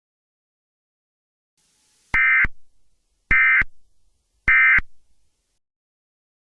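Emergency Alert System end-of-message signal: three short bursts of SAME digital data tones, each about a third of a second long, about a second apart.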